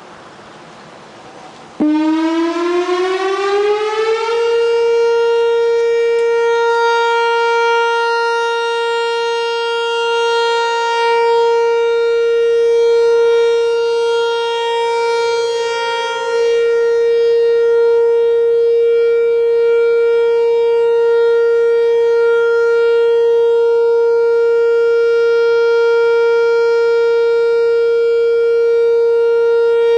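Whelen 4004 electronic outdoor warning siren sounding its test signal. It starts abruptly about two seconds in, glides up in pitch for a couple of seconds, then holds one loud steady tone.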